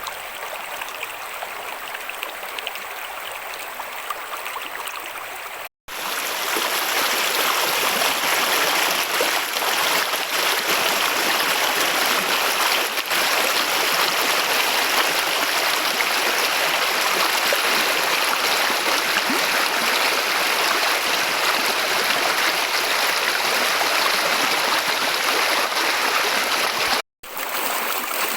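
Mountain stream flowing, a steady rush of water. It cuts out briefly about six seconds in and comes back louder, then cuts out again near the end.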